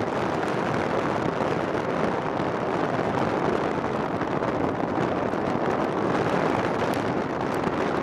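Steady rushing wind noise on the microphone, with no clear engine tone or distinct events.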